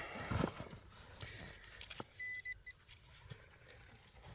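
Faint scraping and clicking of soil and a spade being worked, then about two seconds in a short run of rapid, high, evenly pulsed beeps from a metal detector signalling a target.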